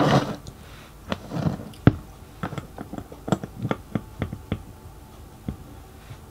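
About a dozen light, sharp clicks and taps of small metal parts being handled: a brass piston on its rod and a model steam-engine cylinder block are picked up and turned, and the piston is offered into the cylinder bore.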